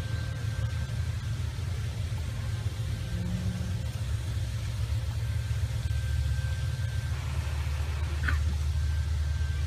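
Steady low rumble with no speech, a little stronger in the second half, and a brief high chirp about eight seconds in.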